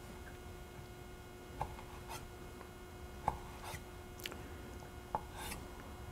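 Chef's knife slicing lemon peel into thin threads on a wooden cutting board: a few faint, irregular knocks of the blade meeting the board.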